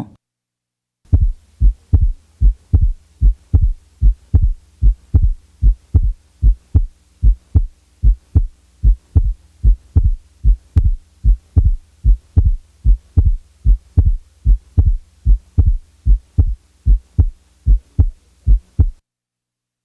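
Heart sounds as heard through a stethoscope: a steady lub-dub a little faster than one beat a second, starting about a second in. The second sound (S2) is widely split into its aortic and pulmonic closures, the sign of delayed pulmonic valve closure. Now and then the split is taken out, giving a normal single S2 for comparison.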